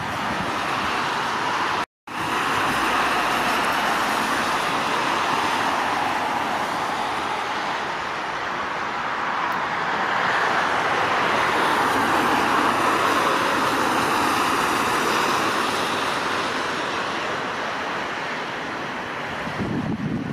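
Boeing 737-800's CFM56-7B jet engines running at low taxi power, a steady rushing noise without a clear whine as the airliner taxis onto the runway. The sound drops out briefly about two seconds in.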